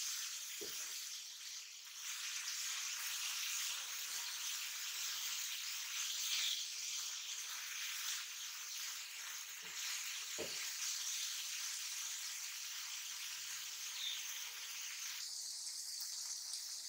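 Shredded cabbage, carrot and capsicum sizzling steadily in a non-stick frying pan as they are stir-fried to cook off their water. A spatula knocks against the pan about a second in and twice more around the middle.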